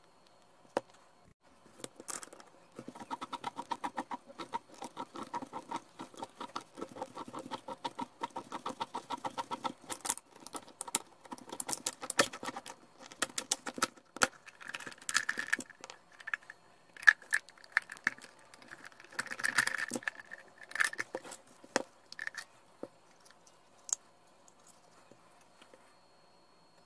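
A K&N oil filter's steel can being cut open with an oil filter cutter: a long run of rapid, even clicking as the tool is worked around the can. After that come louder, scattered metallic clinks and rattles as the cut can and its metal inner parts are handled.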